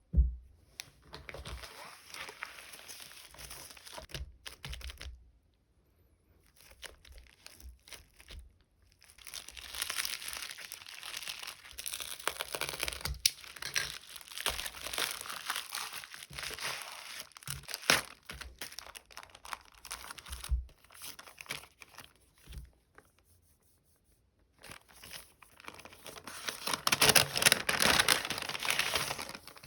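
Plastic (vinyl) packaging crinkling and rustling as it is handled close up, in several long stretches separated by short pauses, with a few sharp clicks.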